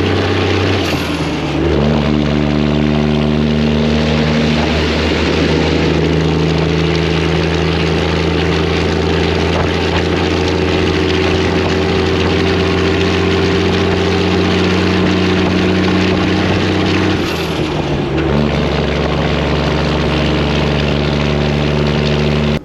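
Freightliner's Detroit diesel truck engine running steadily under way. Its note changes briefly twice, about a second and a half in and again near the end, as with gear shifts.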